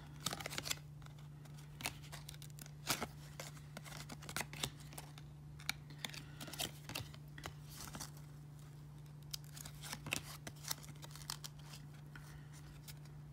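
Glossy 1994 Topps baseball cards being thumbed through one at a time in the hands: irregular light clicks and slides of card stock against card stock.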